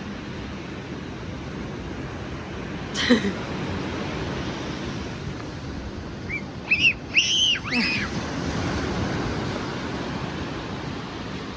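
Steady wash of ocean surf and wind on a beach. About three seconds in there is a short vocal sound, and around seven seconds a few short high-pitched squeals.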